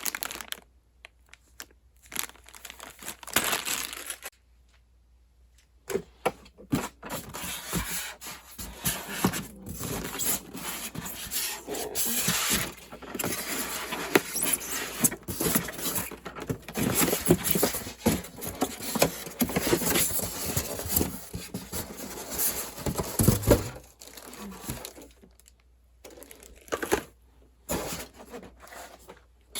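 Packaging being handled and unwrapped: irregular crinkling, rustling and scraping with small knocks, in stretches broken by quiet pauses of a second or more.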